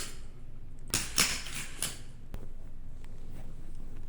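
Plastic toy launcher: two sharp clicks about a second in, then about a second of rushing, rattling noise, and a single light click a moment later.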